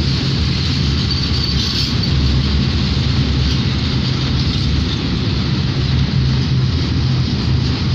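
Eaos open freight wagons rolling past at close range: a steady, continuous noise of steel wheels running on the rails.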